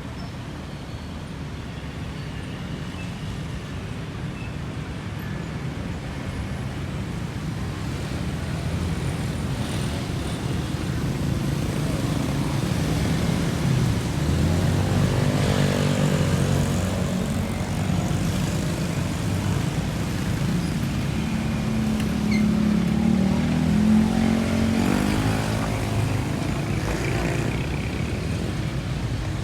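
A large bus's engine grows louder as it approaches and passes close by, with its pitch bending as it goes past. Road traffic noise runs underneath.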